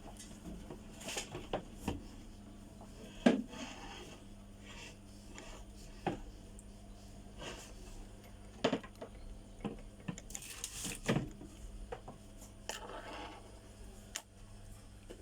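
Scattered small clicks, taps and brief scrapes of hand tools and parts handled on a workbench while repairing a phone's charging connector, the sharpest click about three seconds in, over a faint steady hum.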